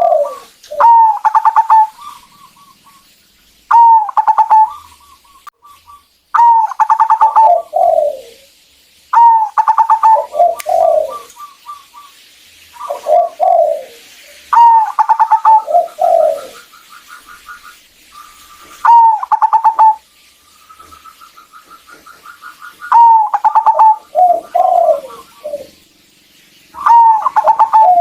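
Zebra dove (perkutut) cooing: a loud phrase repeated about every three to four seconds, each a quick burst of higher notes dropping into lower, falling coos, some trailed by a rapid run of short staccato notes.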